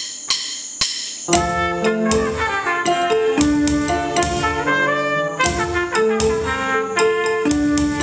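Trumpet playing a melody of held notes: one high note at the start, then from about a second in a steady line of notes that change every fraction of a second.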